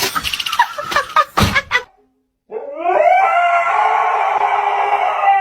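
A dog howling: one long drawn-out howl that rises at its start and then holds steady, beginning about halfway through. It follows a short burst of clattering noise.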